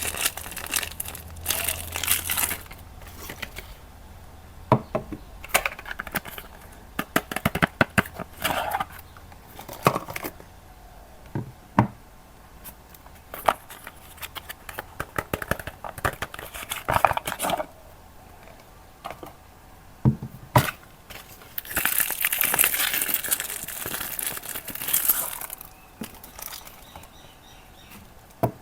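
Soap bar wrapping being crinkled and torn open by hand: bursts of rustling and crackling with sharp clicks, and a longer stretch of rustling near the end.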